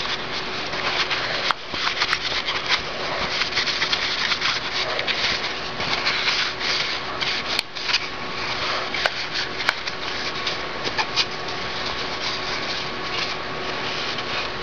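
Paper towel scrubbing the inside of a plastic Rotor paintball loader lid, wiping burst paintball paint out of its crevices: a continuous scratchy rubbing with a few sharp clicks.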